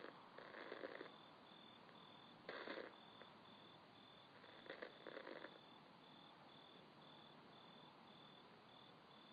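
Faint, regular chirping of a cricket, about two to three short chirps a second, with brief bursts of breathy, hiss-like noise every couple of seconds.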